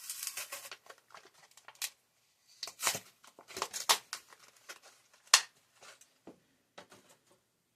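Packaging of a die-cast toy car being opened by hand: crinkling and tearing of plastic and cardboard, with one sharp snap about five seconds in.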